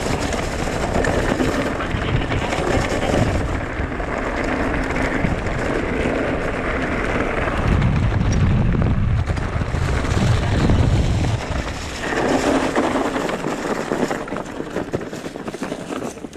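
Wind rushing over the microphone and the rumble of mountain bike tyres rolling over a dirt trail during an e-MTB ride, heavier about halfway through and easing near the end.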